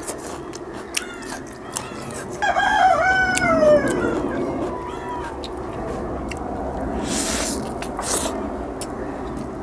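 A rooster crows once, a single long call about two and a half seconds in that trails off falling in pitch. Small clicks and smacks of someone eating go on around it.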